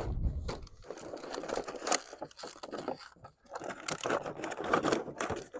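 Irregular rustling, scraping and crunching, with many short clicks packed close together and louder patches about two seconds and five seconds in.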